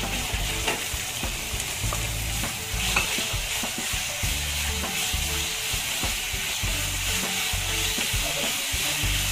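Chopped onions sizzling steadily in hot oil in a wok, stirred with a wooden spatula that scrapes and knocks against the pan.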